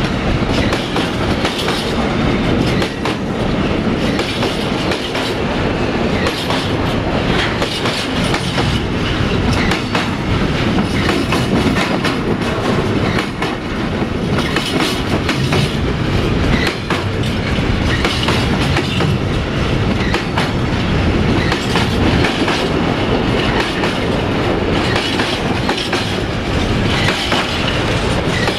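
A freight train of container flat wagons rolling past at close range: a steady, loud rumble of wheels on rail with frequent clicks and clacks.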